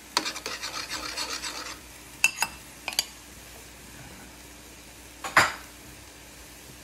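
Metal spatula and ladle scraping and clicking against a wok as stir-fried vegetables are tossed with sauce, a dense clatter for the first couple of seconds. Then a few sharp metal taps, and one loud metal clank about five seconds in.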